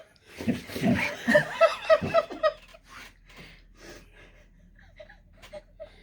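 Hearty, high-pitched laughter in quick repeated bursts for about two and a half seconds. It then dies down to faint scattered chuckles and breaths.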